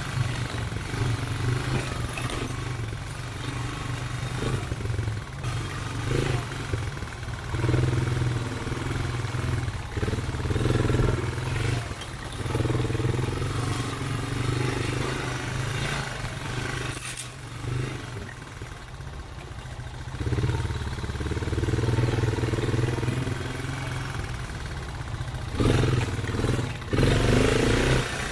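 ATV engine running as the quad is ridden along a dirt trail, its pitch rising and falling over and over as the throttle opens and eases.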